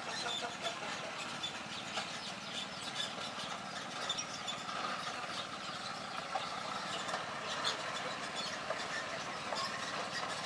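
A small engine running steadily, with a constant drone and hiss and scattered faint ticks over it.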